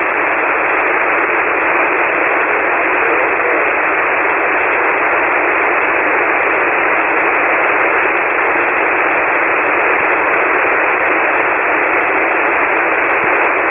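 Shortwave receiver on 40-metre single sideband with no station coming through: a steady, even hiss confined to the narrow voice passband, as the band noise is heard while a reply is awaited.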